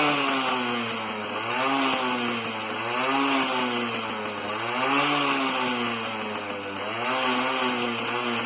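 Yamaha RX 100's 98 cc single-cylinder two-stroke engine revved again and again with the throttle, its pitch rising and falling about every one and a half to two seconds.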